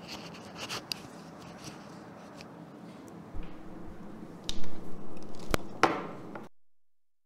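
Handling noise from a clip-on lavalier microphone being fixed to a shirt: fabric rustling, scratching and small clicks, with louder knocks and rubbing a little past halfway. The sound cuts off abruptly to dead silence near the end.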